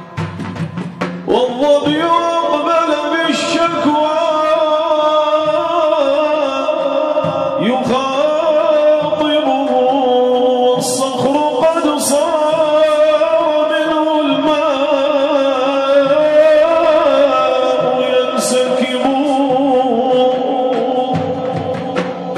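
Unaccompanied male singing of Islamic devotional praise (inshad), a long drawn-out melismatic line with a wavering pitch. Drum strokes sound briefly at the start and the drumming comes back near the end.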